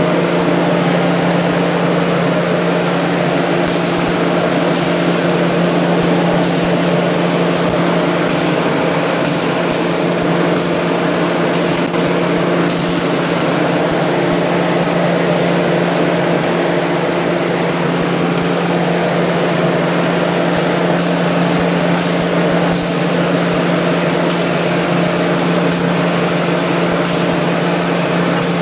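Gravity-feed paint spray gun hissing in short passes as the trigger is pulled and released, about a dozen times in two spells, over a steady motor hum.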